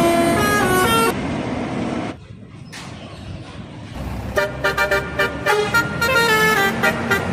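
Indonesian bus telolet horn, a multi-tone air horn, playing a melody of stepping notes. It stops abruptly about a second in and gives way to quieter traffic noise. A little past halfway another telolet horn starts up with quick, choppy notes.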